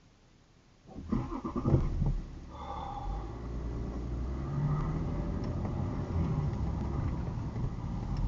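Car engine and road noise heard from inside the cabin while driving. It comes in suddenly about a second in, is loudest for the next second or so, then settles into a steady rumble.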